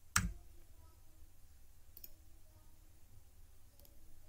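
Computer mouse button clicking: one sharp click just after the start, then faint clicks about two seconds in and near the end, over quiet room tone.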